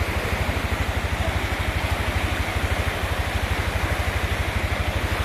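Swollen river in flood, its fast, high water rushing with a steady roar. A fast, even low throbbing runs underneath.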